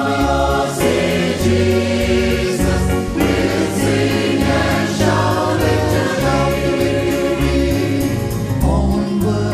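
A choir singing a gospel song in full chords over instrumental backing with a steady beat and bass.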